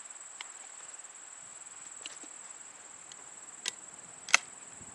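Steady high-pitched insect trill, likely crickets, with a few sharp clicks, the loudest about four and a half seconds in.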